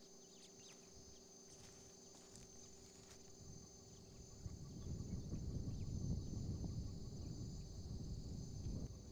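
Steady high-pitched buzzing of insects in the bush, with a few faint chirps early on. From about halfway a louder low rumbling noise comes in and becomes the loudest sound.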